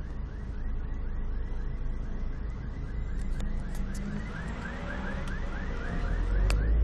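Car alarm siren going off while the car is driven: a fast run of short rising whoops, about three a second, over the low rumble of engine and road noise, which grows louder near the end.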